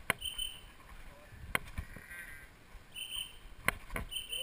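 Sharp knocks and dull thuds from the wearer's movement, picked up by a chest-mounted camera: footfalls and bumps against the camera. Short high bird calls are heard three times.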